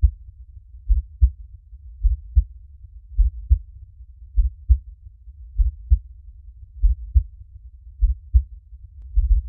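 Heartbeat: slow, steady lub-dub double thumps, about one beat every 1.2 seconds, low and muffled, with a faint low rumble between beats.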